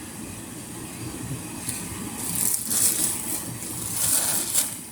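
Plastic packaging crinkling and rustling as a swimsuit is handled. The rustling grows louder about two seconds in.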